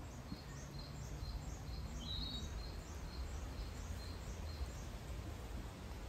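A small songbird singing a quick series of short, high two-note phrases, repeated about twice a second for nearly five seconds, with one louder rising note a little after two seconds in. A steady low rumble of background noise sits underneath.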